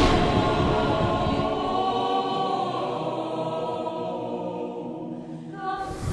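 Dramatic choral film score: a choir holds a sustained chord that slowly fades, with a sudden hit at the very start.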